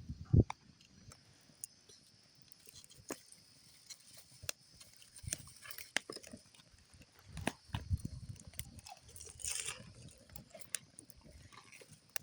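Popcorn being chewed, with irregular low crunching and munching close to the microphone, and sharp crackles from a campfire.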